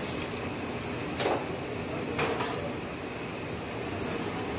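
A utensil stirring in a stainless steel saucepan of sautéing chopped aromatics, knocking against the pan a few times over a steady hiss.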